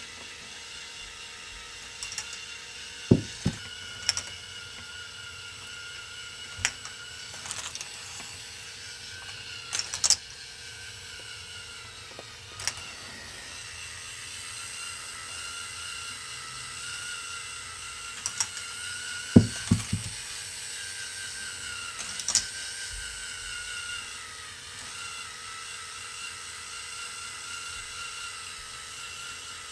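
K'nex ball machine running: the steady whine of its small electric motor and plastic gears turning the wheeled crankshaft lift, with sharp plastic clicks and clacks at irregular moments, the loudest about two-thirds of the way in.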